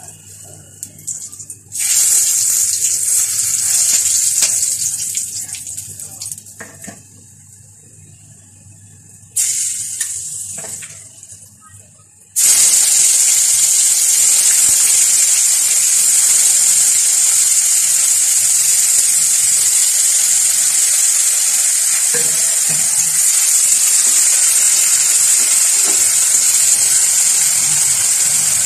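Grated onion frying in hot oil with whole spices in a kadai. Two short bursts of sizzling start suddenly and die away over a few seconds. About twelve seconds in, a larger load of onion goes in and the oil sizzles loudly and steadily.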